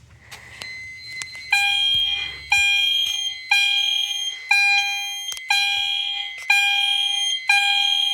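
EST Genesis fire alarm horns sounding in alarm, a loud tone pulsing about once a second, starting about a second and a half in, after an i4 detector has been set off in a system test. A fainter steady tone starts shortly before the horns.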